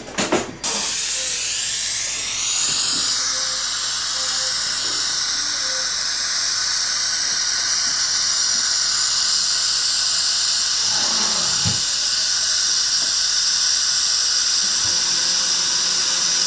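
Dental implant surgical handpiece drilling an implant site through a surgical guide: a whine that rises over the first couple of seconds and then holds steady, over a steady hiss from the surgical suction.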